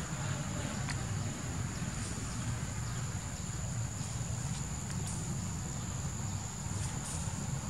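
Insects droning steadily at a high pitch, over a low steady rumble, with a few faint ticks.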